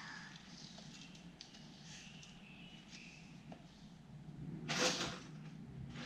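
Dry rolled oats being dropped by hand into a plastic bowl on a kitchen scale: faint rustles and light patters, with one louder, brief rush of oats about five seconds in.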